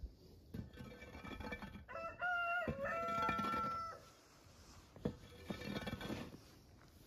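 A rooster crows once, a call about two seconds long starting about two seconds in. Before and after it, a hoe scrapes and drags through loose dirt in short strokes.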